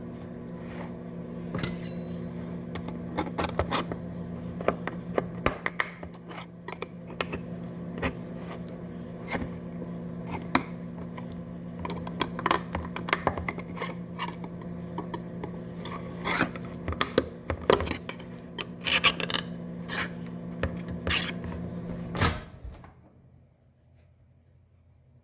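Microwave oven running with a steady hum, with irregular clicks and clinks over it, then shutting off abruptly near the end, leaving near silence.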